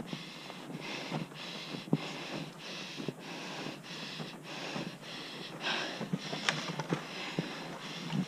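Footsteps crunching in snow at a steady walking pace, each step a short rush of crunching with brief gaps between, and a few soft knocks.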